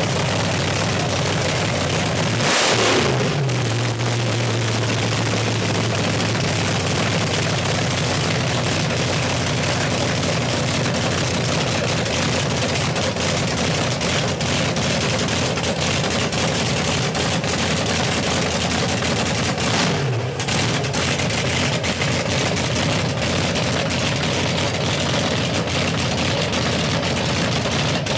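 Supercharged V8 of a front-engine nostalgia dragster running at idle through open zoomie headers, with a constant crackle of exhaust pops. It is blipped twice, about two and a half seconds in and again near twenty seconds, and each time the revs fall quickly back to idle, as the engine is warmed up.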